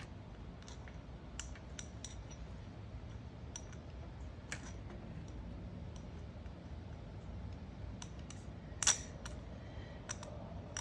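Small metal screws and carburetor parts being handled and fitted, giving scattered light clicks and taps, with a louder click about nine seconds in, over a low steady background rumble.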